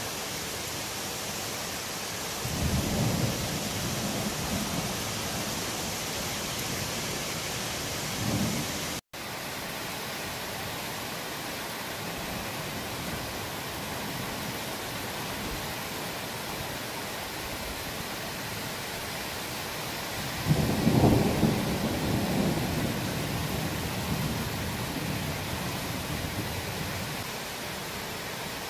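Thunder rumbling over a steady hiss of rain: a rumble about two and a half seconds in, a short one near eight seconds, and a louder, longer rumble about twenty seconds in that dies away over several seconds. The sound cuts out for an instant just after nine seconds.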